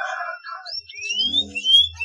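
Domestic canary singing a short phrase: a brief raspy note, then a few rising whistled notes.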